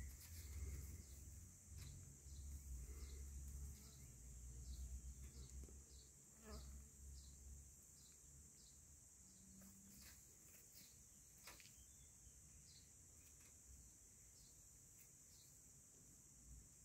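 Near silence, with the faint steady high-pitched chirring of insects throughout and a low rumble in the first half. A few soft ticks and rustles of dry grass come and go.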